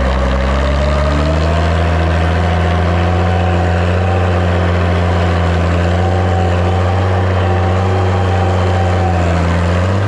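Six-cylinder diesel engine of a Massey Ferguson MF 95X tractor running steadily, a deep drone with a thin higher tone over it that rises a little over the first few seconds; the engine note shifts slightly about a second in.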